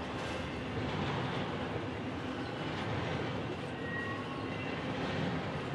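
Double-stack intermodal container train rolling past close by: a steady rumble and clatter from the well cars' wheels on the rails.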